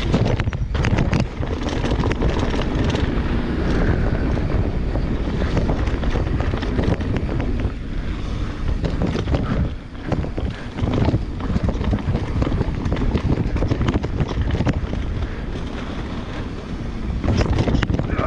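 Wind buffeting the microphone on a mountain bike descending a dirt downhill trail, mixed with tyre noise on the ground and scattered knocks and rattles from the bike over rough terrain.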